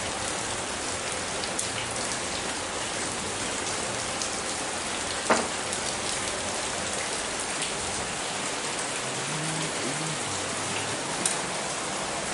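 Heavy rain pouring down steadily, a dense even hiss. A few sharp taps stand out, the loudest about five seconds in and another near the end.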